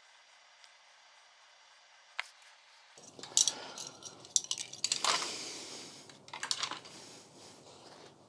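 Hard parts being handled while a flat-screen TV is taken apart: a single click, then a run of irregular clicks, knocks and clatter, with a longer scraping noise about five seconds in.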